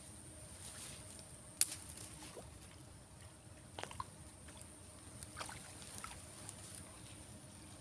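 Faint water sloshing and lapping, with a few sharp clicks and taps, the loudest about a second and a half in, over a steady high-pitched whine.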